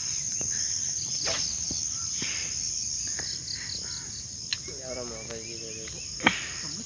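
Steady high-pitched chorus of crickets and other insects at dusk, with a few sharp clicks, the loudest about six seconds in, and a short low pulsing call about five seconds in.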